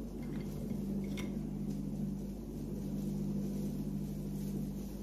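A steady low hum, with a few faint light taps about a second in.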